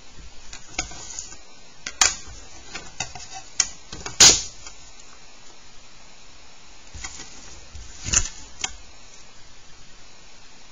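Clear plastic set squares and ruler being picked up, set down and shifted on paper on a desk: a run of sharp plastic clacks and taps, loudest about four seconds in, with another strong clack and a lighter tap about eight seconds in.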